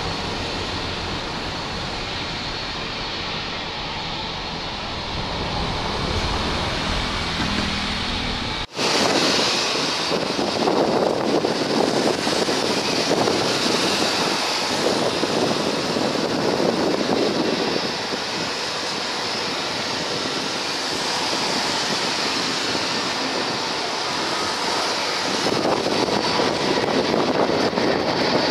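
Jet airliner engine noise mixed with wind rumbling on the microphone, first from an Airbus A330 rolling on the runway. About nine seconds in it cuts abruptly to an Airbus A350 on final approach, its Rolls-Royce Trent XWB engines a little louder, with a steady high whine.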